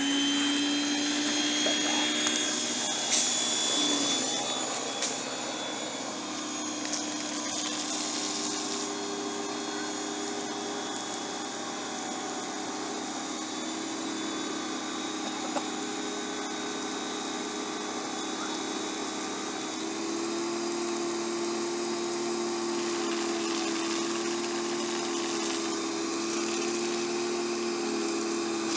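Ryobi 1600 psi electric pressure washer running, its motor and pump giving a steady hum as water sprays from the wand. The hum's pitch steps up slightly about twenty seconds in.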